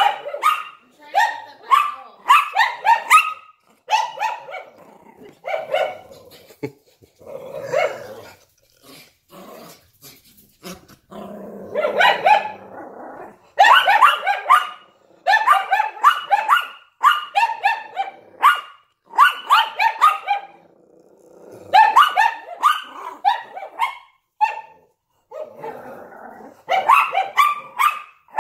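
A Yorkshire Terrier and a Lhasa Apso barking, in quick bursts of several sharp barks with short pauses between them. There is a stretch of growling around the middle.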